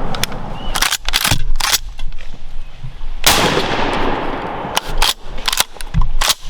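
A shotgun fires once about halfway through, its blast rolling away in a long fading echo, amid a string of shorter sharp clicks and knocks.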